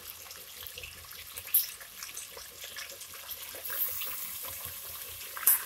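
Raw chicken pieces sizzling as they go into hot oil in a metal pan. The hiss grows louder about four seconds in, and there are two sharp clicks.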